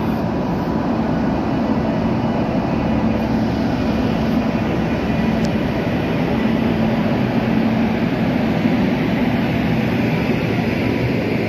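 WAP-7 electric locomotive and the Kaveri Express's coaches rolling past close by as the train pulls out of the station: a loud, steady noise of wheels on the rails with a low hum.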